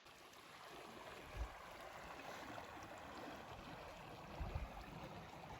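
Faint, steady rushing noise with no voice, with a couple of soft low bumps, one about a second and a half in and another about four and a half seconds in.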